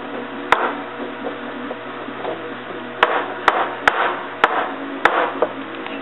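A drilled-out steel door hinge being knocked, about six short sharp knocks, one early and the rest bunched in the second half, shaking loose fragments of its rusted, broken-up hinge pin.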